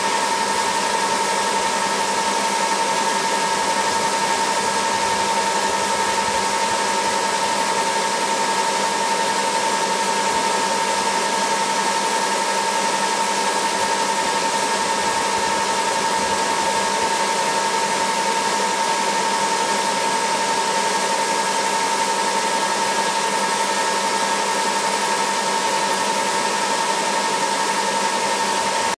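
Black Hawk helicopter's turbine engines running: a steady high whine over a constant rush of noise.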